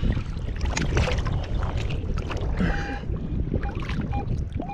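Water sloshing and splashing as a detectorist wades and digs in shallow river water. In the second half a Garrett AT Pro metal detector gives several short beeps over the hole, the sign that the target is still in it.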